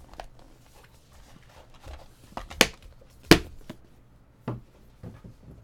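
Hands handling a trading card box and a clear plastic case of cards on a padded mat: a few scattered light clicks and knocks, the two loudest about two and a half and three and a half seconds in.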